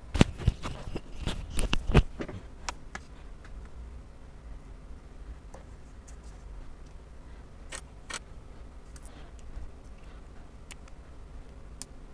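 Small plastic parts of an Omnipod insulin pump clicking and knocking as the housing is pried apart by hand with tools. A quick run of sharp clicks comes in the first two seconds, then scattered single clicks.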